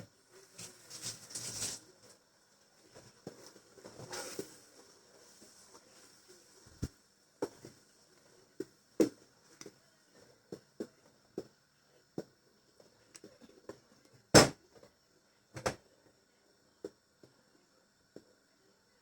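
Scattered light knocks and clicks of kitchen utensils and cookware, with two short stretches of noise near the start and about four seconds in; one sharper knock comes about two-thirds of the way through.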